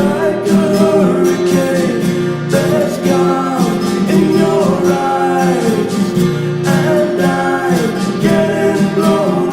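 Acoustic guitars playing an instrumental break: strummed chords under a melody line that slides and bends between notes.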